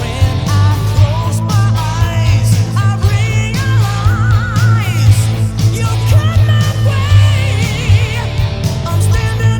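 Rock song playing, with electric guitar, a singing voice and a heavy, steady bass, the lead line bending and wavering in pitch.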